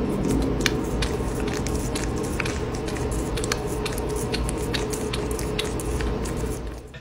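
A cat licking and nibbling a peeled banana: a run of quick, wet clicks and smacks, several a second, over a steady low background hum.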